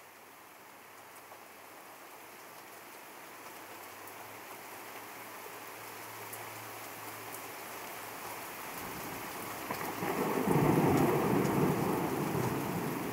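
Steady rain hiss fading in and growing louder, then a rumble of thunder about ten seconds in that dies away over a couple of seconds.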